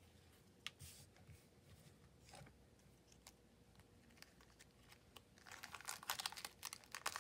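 Faint rustling and light ticks as a bundle of transparent flower stickers is handled, then from about five seconds in a dense, loud crinkling of a clear plastic sticker packet being handled.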